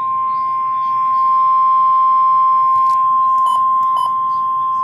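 NOAA Weather Radio 1050 Hz warning alarm tone: one loud, steady single-pitch tone sounding ahead of a National Weather Service warning message, with two brief clicks past the middle.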